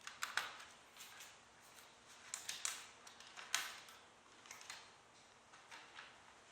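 Irregular light clicks and scrapes of small hardware being handled: hands working on a laptop's case and memory modules. The sharpest clicks come about half a second in and again past three and a half seconds.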